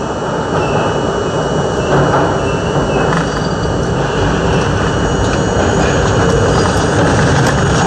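R42 New York subway train running, a steady rush of wheel and running noise that grows louder as it picks up speed, heard from inside the front car, with a thin steady high tone above it.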